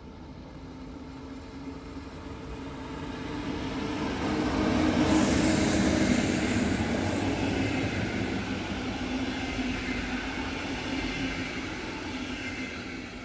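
DB class 112 electric locomotive and a rake of double-deck coaches passing close by. The wheel and rail noise swells to a peak about five seconds in as the locomotive goes past, then fades as the coaches run by, over a low steady hum.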